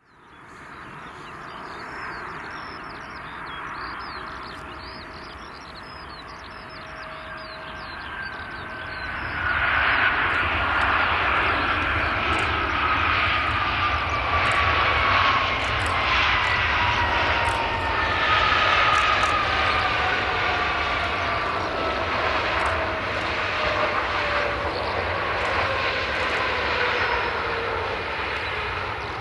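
Boeing 737-800's CFM56-7B jet engines on the landing roll-out. The jet engine noise grows much louder about a third of the way in, with a whine sliding steadily down in pitch.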